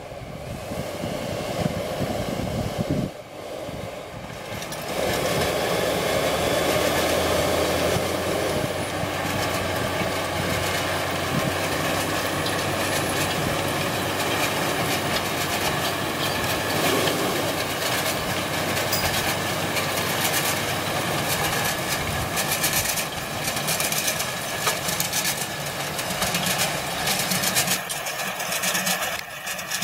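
John Deere 6930 tractor's six-cylinder diesel engine running steadily under load while pulling a seed drill through the soil. It gets louder about five seconds in as the tractor comes close, with frequent knocks and rattles through the second half.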